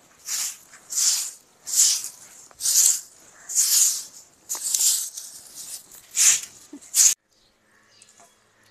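A short grass hand broom sweeping a packed-earth floor in repeated strokes, a hissing swish about once a second. The sweeping stops abruptly about seven seconds in.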